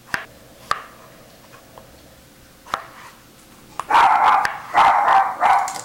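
A few light knife taps on a plastic cutting board as potatoes are sliced into wedges, then a dog barks three times in quick succession in the second half.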